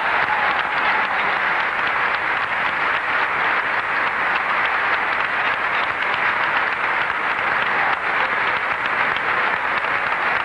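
Audience applauding: steady, dense clapping, heard through an old recording with little top end.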